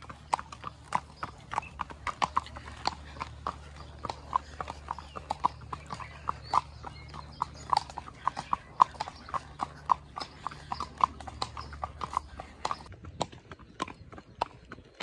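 Hooves of two horses walking on a paved road: an uneven clip-clop of hoof strikes, several a second.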